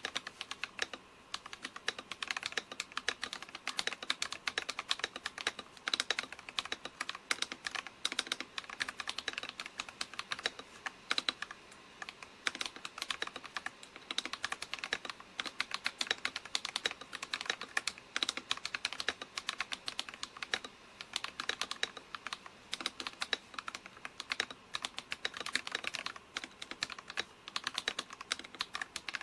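Typing on a mechanical keyboard fitted with Akko V3 Penguin silent tactile switches: fast, continuous, irregular keystrokes that stop right at the end.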